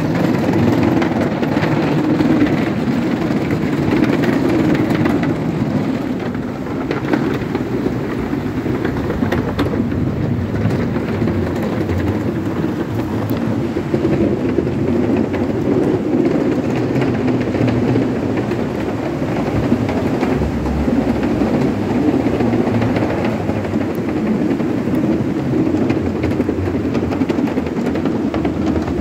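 Skateboard wheels rolling over a wooden plank boardwalk: a steady rumble with a fast clatter from the plank joints.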